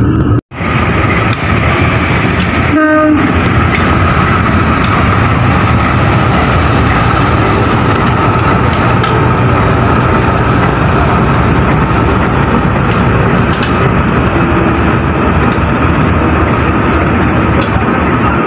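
Passenger train running steadily. About three seconds in comes a short horn blast.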